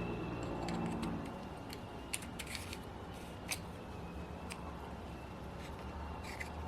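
A few faint, scattered clicks and taps of small metal parts as a freshly lubed piston and connecting rod are fitted into a Magnum XL 30 RFS model four-stroke glow engine, over a low steady hum.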